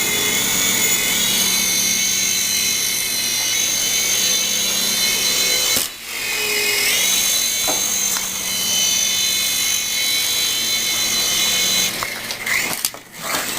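Toy remote-control helicopter's small electric motor and rotor whining steadily in flight. The pitch wavers as the throttle changes, and the whine dips briefly about six seconds in. It cuts out near the end, followed by a few knocks as the helicopter crashes.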